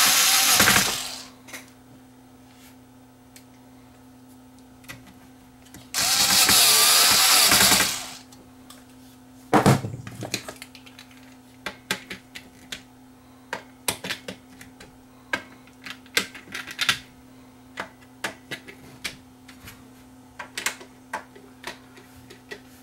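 Cordless screwdriver whirring in two short runs, the first stopping about a second in and the second lasting about two seconds, as it drives screws into a metal amplifier bottom cover. A sharp knock follows a couple of seconds later, then scattered light clicks and taps of handling the screwdriver and the metal panel.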